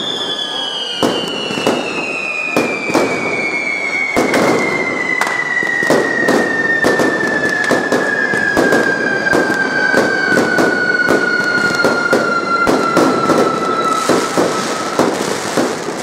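Fireworks display: a dense, irregular run of bangs and crackling bursts. Over it, a long high whistle slides slowly down in pitch and stops about fifteen seconds in.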